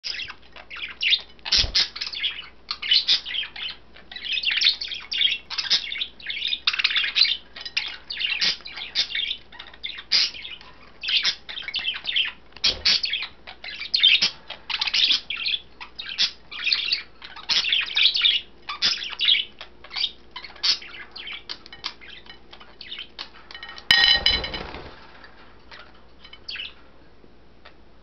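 A flock of budgies chattering and chirping busily while they eat spinach. Near the end there is a sudden loud clatter as a seashell in the cage is knocked over, and the chattering dies away.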